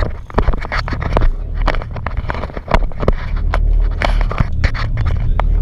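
Twister speedboat's 1,000-horsepower engines idling with a steady low hum, overlaid by many sharp knocks and scrapes from handling close to the microphone.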